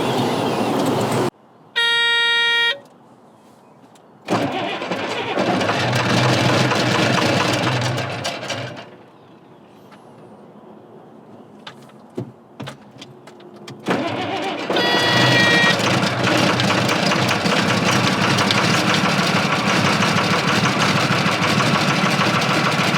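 Diesel engine of a wheel loader starting and running, heard across several cuts, with two short pitched beeps, one near the start and one about halfway through.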